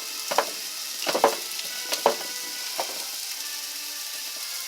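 Old hand-cranked cast meat grinder being turned as it grinds beef, with a creaking knock about once a turn over a steady hiss. The strokes fade out after about three seconds.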